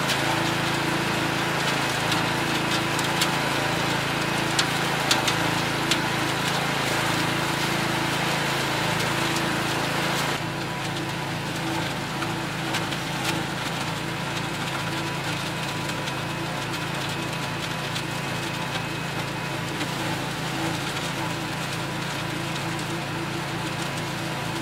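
Cast-iron Kohler K341 single-cylinder engine of an Allis Chalmers 416 garden tractor running steadily at speed, driving the composter attachment as leaves are fed in and shredded. Scattered sharp clicks and crackles come through in the first six seconds, and the sound drops slightly in level about ten seconds in.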